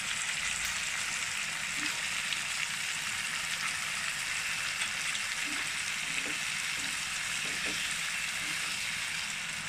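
Green peas, cashews and whole spices sizzling steadily in hot oil in a non-stick pan over a high flame.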